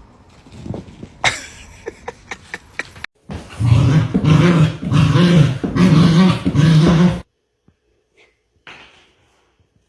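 A dog vocalizing loudly in about four drawn-out, pitched pulses, after a few seconds of scattered clicks and taps; the sound cuts off suddenly.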